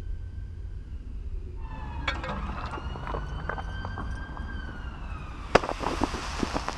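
Hydrogen peroxide foam erupting from a tall straight-sided tube: scattered crackling, then a sharp crack and a sudden hiss near the end as the foam jets out of the top. A faint tone slowly rising and falling in pitch runs underneath.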